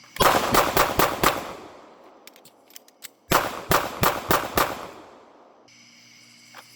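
Pistol fired in two rapid strings, about five shots and then about six, with a pause of about two seconds between them in which a few faint clicks sound.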